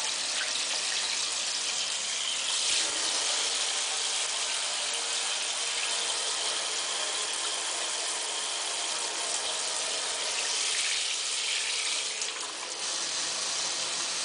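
Water spraying steadily from a shower head, an even hiss of running water; the spray changes briefly about 3 seconds in and dips slightly near the end.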